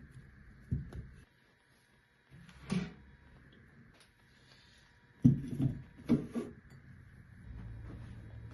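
A handful of household knocks and clunks, like cupboard doors or drawers and objects being handled: a couple of single clunks, then the loudest cluster a little past halfway. A faint steady hum runs underneath.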